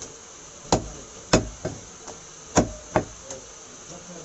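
Heavy butcher's cleaver chopping a leg of meat into bone-in pieces on a wooden chopping block: five sharp, uneven chops, the loudest a little over a second in and about two and a half seconds in.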